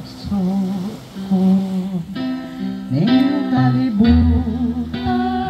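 A woman singing through a microphone and PA loudspeakers, a melody in phrases that bend and glide, over amplified instrumental accompaniment with held notes and a guitar-like sound.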